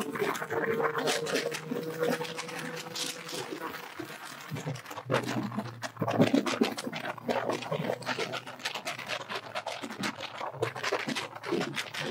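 Motorcycle engine running at a steady pitch, its note dropping about five seconds in, with wind buffeting the microphone throughout.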